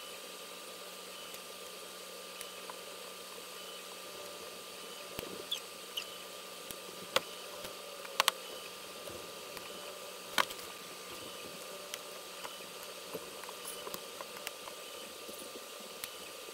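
Small sharp metallic clicks and clinks as screws are unscrewed from a resin printer's vat frame and handled with a hex tool, over a steady background hum. The loudest is a quick double click about eight seconds in, and another comes a couple of seconds later.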